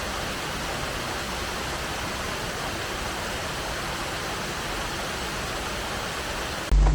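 Steady rushing of a rain-swollen creek, an even hiss of fast water with no rhythm, cut off abruptly near the end.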